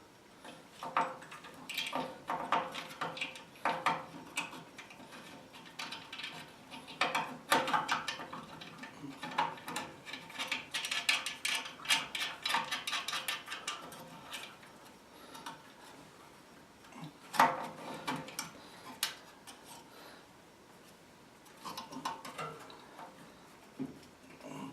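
Metal parts and hand tools clinking, clattering and rubbing as a furnace is worked on and put back together, with a series of sharp knocks and one louder clank about two-thirds of the way through.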